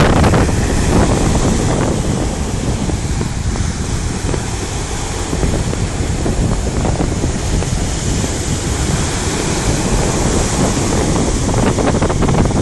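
Sea waves washing onto the shore, with wind buffeting the microphone in a heavy low rumble. The surf eases a little mid-way and swells again toward the end.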